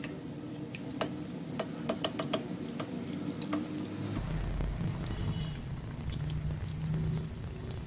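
Batter-coated bread pakoda deep-frying in hot oil: a steady sizzle with many sharp pops and crackles, most of them in the first half.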